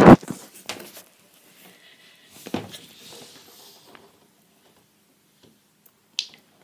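Handling noise: a loud knock at the start, another softer knock about two and a half seconds in with faint rustling around it, and a short sharp click near the end.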